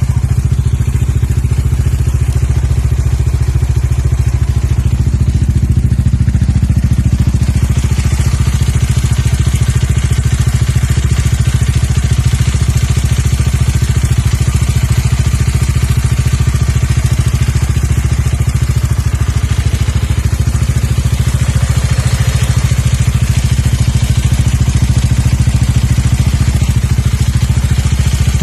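Bajaj Dominar 400's single-cylinder engine running steadily, with a clatter over the engine note that the owner describes as like a cam chain or the valves, as if the engine were out of tune. About a third of the way in the higher clatter becomes louder.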